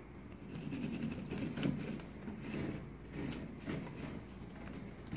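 Hand jab saw cutting a circular hole in a ceiling tile: short, uneven rasping strokes, roughly one or two a second.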